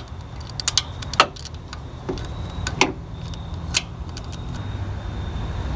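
Scattered metallic clicks and taps of a wrench working on the power steering pump's pivot bolt, a handful at irregular intervals, over a steady low rumble.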